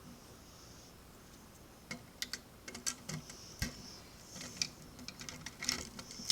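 Light, irregular clicks and taps of plastic Lego bricks being handled and moved, starting about two seconds in.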